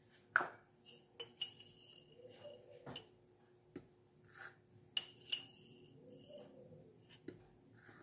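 A metal spoon clinking and scraping against a small glass jar as ground coffee is scooped out and tipped into a mesh filter. It happens twice, faint, with a short ringing clink each time.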